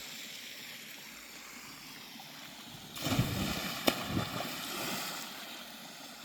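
Water washing steadily, with a louder stretch of splashing and a sharp knock from about three seconds in that lasts around two seconds.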